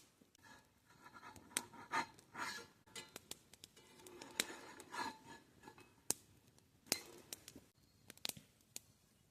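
Faint metal clinks and scrapes of cookware being handled, with scattered sharp ticks throughout.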